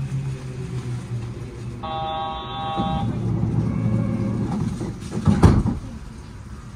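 A Yurikamome automated train stands at a station with a low steady hum. About two seconds in, a steady electronic buzzer tone sounds for about a second. A short, sharp thump follows about three seconds later, the loudest sound, as the doors close before departure.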